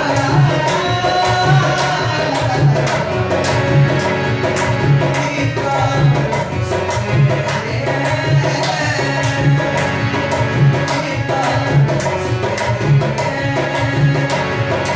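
A dholak plays a steady hand-drum rhythm, with a deep stroke about once a second and quicker finger strokes between, under a sustained melody line in an instrumental passage of a Hindi film song.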